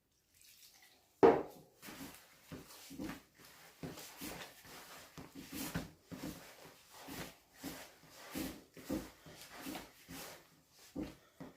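Hands kneading samoon bread dough with water just worked in: a run of irregular soft presses and slaps, with one sharper knock a little over a second in.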